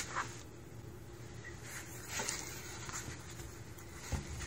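A cat's paws and body rubbing and scratching on cardboard as it turns around inside a box: a few short scratchy rustles, then a soft thump near the end.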